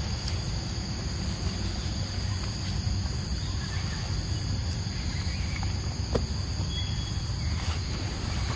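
Insects buzzing steadily in one high continuous drone, over a constant low rumble, with a few faint clicks.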